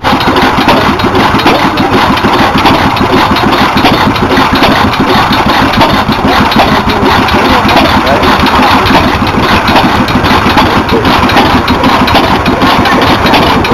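Hit-and-miss stationary engine running steadily, with a dense, rapid clatter.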